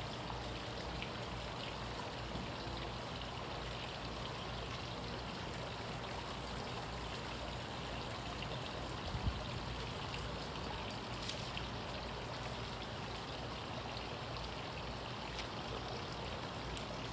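Steady rushing background noise, with one brief knock about nine seconds in.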